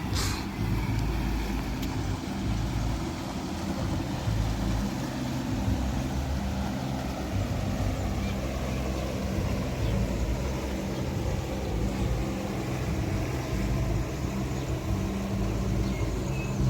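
Engine of a passing river boat running steadily, a low hum.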